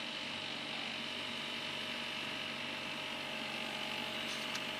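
A steady, unchanging hum made of several fixed tones over a hiss, with a couple of faint clicks near the end.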